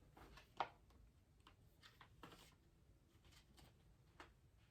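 Near silence: quiet room tone with a few faint, scattered small clicks.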